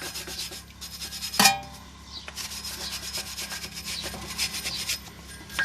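Rapid back-and-forth scrubbing strokes of an abrasive against a brake rotor, cleaning off surface rust, with one brief louder knock about a second and a half in.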